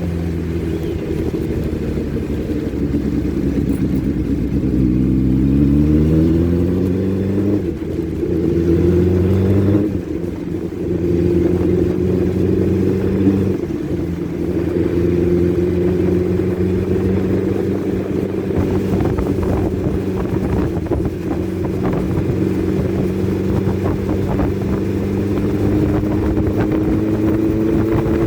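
Motorcycle engine running under way. The revs climb and fall back twice in the first third, then hold a steady pitch.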